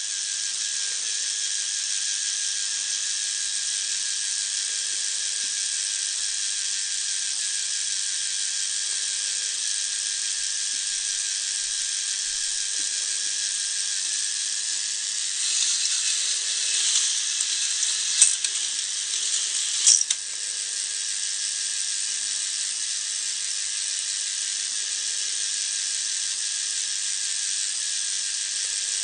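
Motorised chain lift of a K'nex toy roller coaster running, a steady high whirring rattle of plastic chain links. About halfway through it grows louder and more rattly for a few seconds, with two sharp clicks about two seconds apart.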